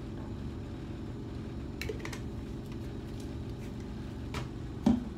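Steady low mechanical hum throughout, with a few light clicks around two seconds in and a sharper knock near the end as hair-product containers are handled.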